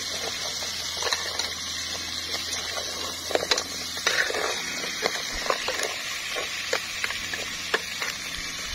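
Metal ladle stirring clams in a pot over a wood fire: irregular clacks of the shells knocking against each other, the ladle and the pot, over a steady hiss from the simmering pot.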